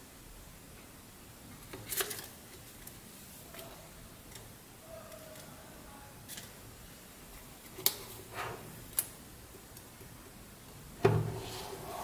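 Hard plastic parts of a wireless remote-control housing being handled and fitted together: scattered clicks and light knocks, with a louder, deeper knock about eleven seconds in.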